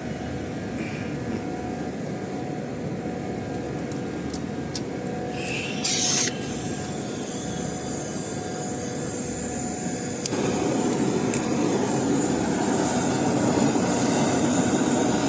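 Steady mechanical hum with a faint steady tone under it. About six seconds in there is a brief hiss with a falling squeal, and about ten seconds in a louder steady rushing noise starts and holds.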